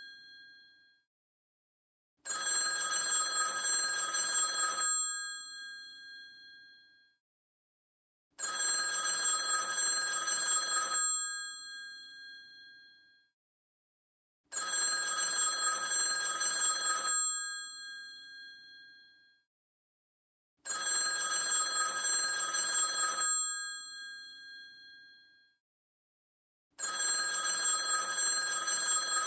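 Vintage telephone's bell ringing in a repeating cadence: five rings, each about two and a half seconds long and about six seconds apart, the bell tone fading away after each ring.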